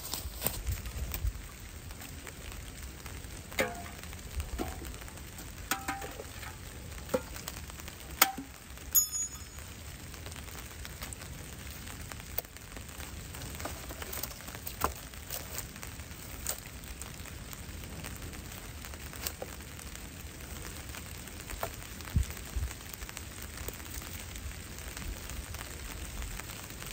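Steady hiss of light rain falling on dry leaf litter. Over it come a handful of sharp snaps and knocks in the first nine seconds or so, as dry twigs and charred wood are broken and handled at a fire pit.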